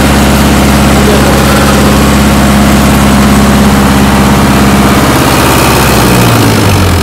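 Tractor diesel engine running loudly and steadily, then lugging down in pitch near the end and dying out: the engine stalling because the tyres are blocked by bricks.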